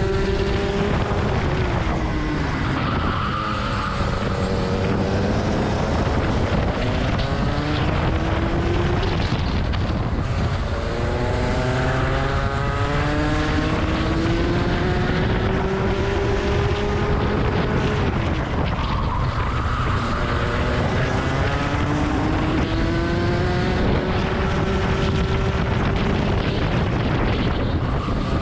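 Rotax kart engine heard from on board, revving up on the straights and dropping off into the corners: its pitch climbs for several seconds and then falls, again and again through the lap. Heavy wind rumble sits under it.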